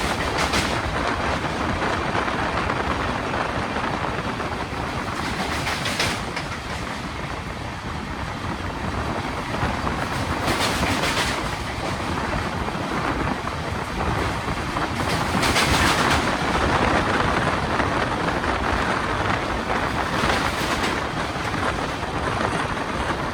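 Intercity express train running on the track: a steady rumble with the clickety-clack of wheels over rail joints, and sharper bursts of noise every few seconds.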